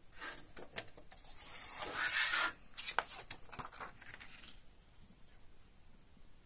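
Paper CD booklet being handled and opened out by hand, rustling and rubbing for about four seconds with a few sharp clicks, loudest in the middle.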